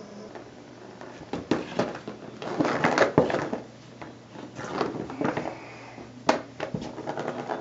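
Light-up plastic ball rattling around the track of a Bergan Turbo Scratcher cat toy as a cat bats at it, with knocks of paws on the plastic ring. The rattling comes in short bursts, busiest in the first half, with a sharp knock a little after six seconds and quick ticks near the end.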